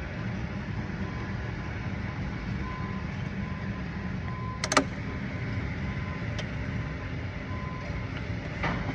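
Old engine air filter being worked out of its plastic housing, with one sharp click a little past halfway, over a steady low rumble.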